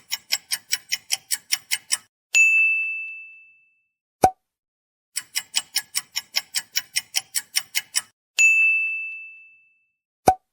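Quiz countdown sound effects: rapid clock-like ticking, about six ticks a second, ends in a bright bell ding that rings out for about a second and a half, followed by a short low pop. The cycle runs twice, with dings about two and eight seconds in and pops about four seconds in and near the end.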